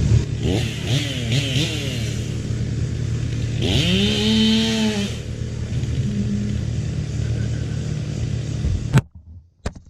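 A chainsaw revving up and down over a steady engine drone, its pitch rising and falling several times with one long rev about four seconds in. It cuts off abruptly near the end.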